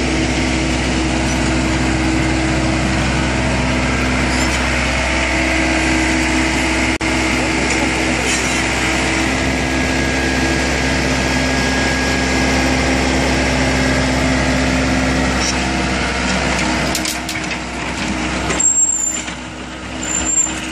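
The diesel engine of a 1998 Daewoo SL55 mini excavator running steadily, with one sharp click about seven seconds in. Near the end the sound changes, with a few clicks and the level dipping and then rising again.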